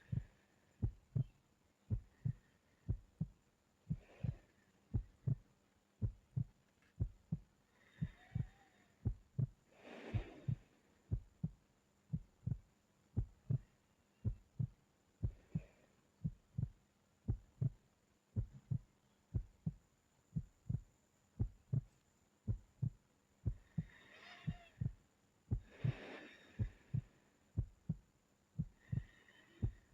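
A steady heartbeat, paired low thumps about once a second, under a sleeping person's soft breathing, with a slow breath every few seconds.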